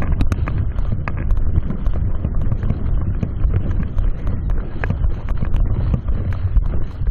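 Wind buffeting the microphone in a steady, heavy rumble, with many irregular short clicks and taps through it.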